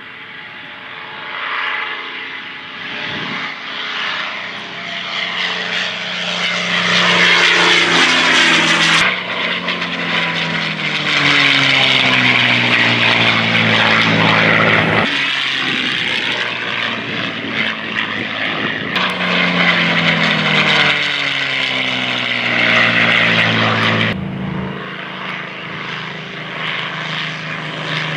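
P-51 Mustang's Packard Merlin V-12 engine running through several flypasts, its pitch sliding down each time the fighter passes. The sound jumps abruptly in level and pitch a few times.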